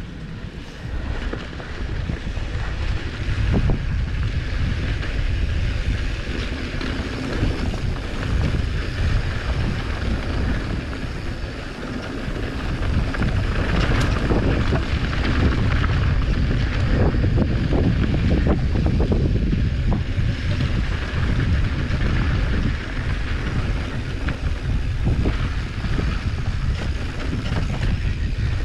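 Wind rushing over the camera microphone as a mountain bike rides down a rough dirt trail, with rattling and knocks from the bike over bumps. The wind noise grows louder about halfway through.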